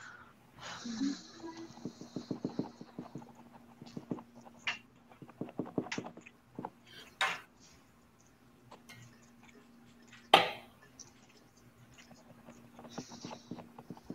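Scattered clicks, taps and scuffs of small objects handled on a desk while painting, picked up by a video-call microphone, with a steady low hum underneath. A quick run of small ticks comes in the first few seconds, and one sharp knock about ten seconds in.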